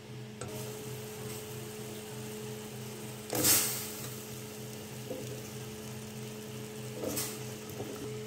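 Cut raw potato pieces tipped into a steel pot of simmering dal masala: a loud splash about three and a half seconds in and a smaller one about seven seconds in, with a light sizzle from the pot between them.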